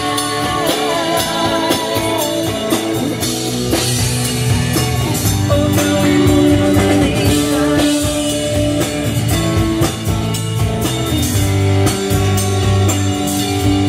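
Live country-rock band playing an instrumental passage between vocal lines: electric and acoustic guitars, bass guitar and a drum kit keeping a steady beat.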